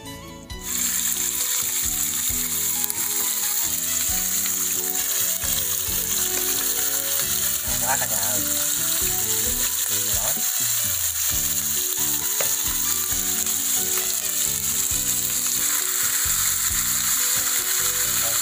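Cuttlefish pieces sizzling in hot oil in a nonstick frying pan: a steady, dense hiss that starts abruptly less than a second in.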